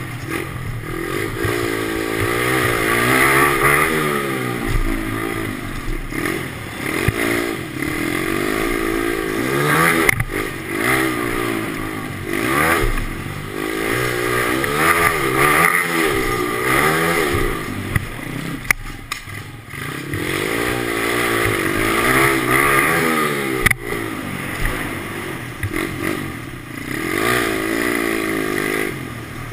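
Kawasaki KLX110 pit bike's single-cylinder four-stroke engine, heard from on board, revving up and falling off again and again under the rider's throttle, with a few sharp knocks.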